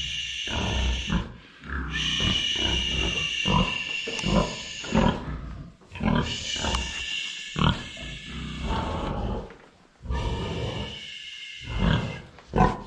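A pen of hungry pigs grunting over and over, with a steady higher squealing behind the grunts. The whole noise drops away suddenly several times, then starts up again.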